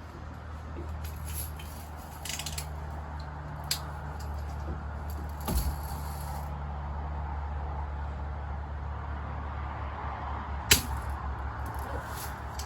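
A Red Ryder lever-action BB gun fires with a sharp snap about eleven seconds in, and softer clicks come earlier. Under it all are a steady low hum and a rain-like hiss.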